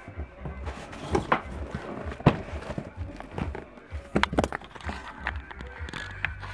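Cardboard shipping box being handled and its flaps opened: several sharp knocks and scrapes of cardboard over background music.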